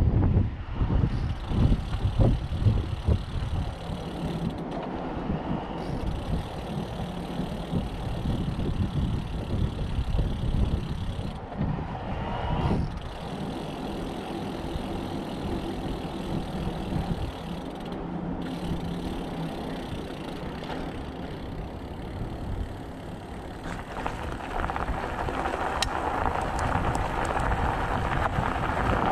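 Mountain bike in motion, heard from the rider's camera: wind buffeting the microphone over a steady rolling rumble, gustier in the first few seconds and louder again near the end.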